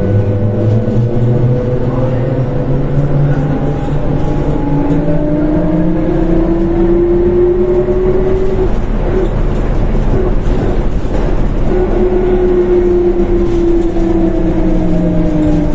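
Ikarus 280 articulated bus running, its engine and drivetrain whine rising in pitch over about four seconds as it accelerates, then falling again near the end as it slows.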